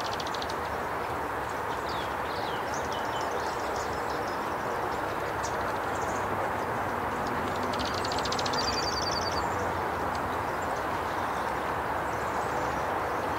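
Small songbirds calling over a steady background rumble: scattered short high chirps, then a rapid high trill of evenly spaced notes about eight seconds in.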